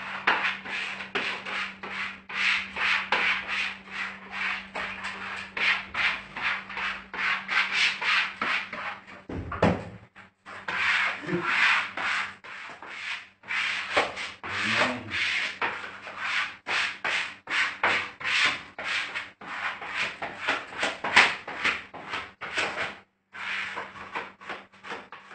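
Wallpaper brush swept quickly back and forth over freshly pasted wallpaper to smooth it onto the wall: a long run of scratchy brushing strokes, with short pauses about ten seconds in and near the end.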